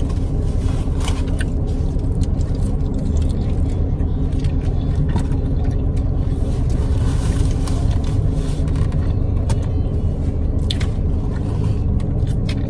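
Steady low rumble of a car's running engine heard inside the cabin, with scattered small clicks and rustles of eating and food packaging.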